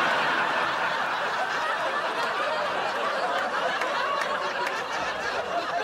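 Sitcom studio audience laughing, a steady sustained crowd laugh.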